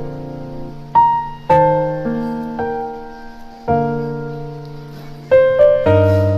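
Slow background piano music: single notes and chords struck one at a time, each fading out before the next, with a short pause in the middle and a quicker run of notes near the end.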